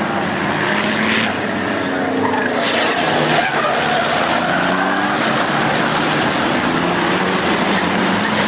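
A pack of race trucks' turbodiesel engines running hard together, many engines overlapping with their pitch rising and falling as they accelerate through a corner. Brief hissing about a second in and again around three seconds in.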